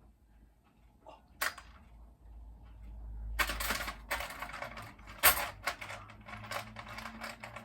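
Plastic wire nuts rattling and clicking as they are handled, with a single click early on and then a dense stretch of rattling from about three seconds in, one sharp click standing out loudest.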